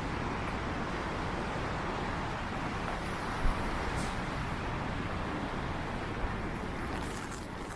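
Steady hiss of road traffic on wet streets mixed with rain, with one brief knock about three and a half seconds in.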